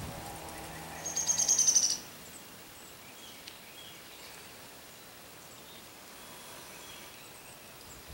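A bird's fast trill of high notes, lasting about a second, about a second in; then quiet woodland with a few faint distant bird chirps.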